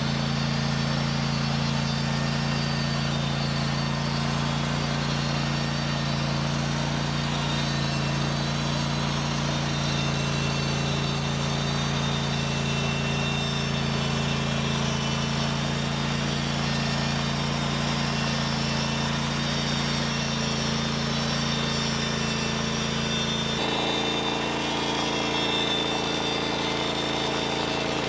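Small gasoline engine of a portable band sawmill running steadily under load as the saw head is pushed through a pine log. Its tone changes abruptly near the end.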